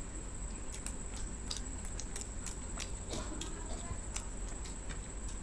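Close-miked chewing and lip-smacking of two people eating soft egg toast: short wet clicks at an uneven rate of about three a second.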